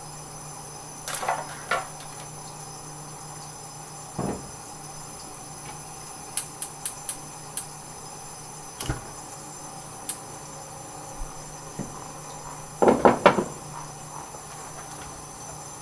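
Scattered clicks and knocks from someone working at an old gas stove to light its burner by hand. A quick run of small sharp clicks comes about six to seven seconds in, and a cluster of louder knocks follows near the end.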